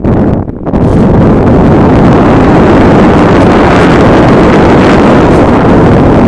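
Rushing airflow over a mobile phone's microphone mounted on a flying RC glider: loud, steady wind buffeting that drops away briefly near the start, then runs on.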